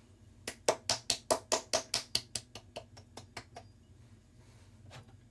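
A quick run of about fifteen light taps or clicks, about five a second, loudest at first and fading away.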